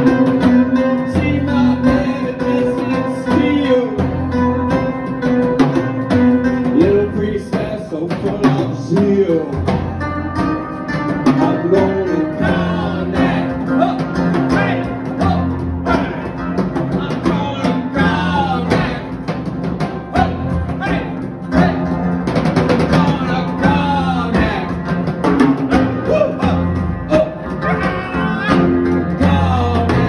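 Rock band playing live: electric bass, guitars and drum kit keeping a steady beat, with a man singing into the microphone.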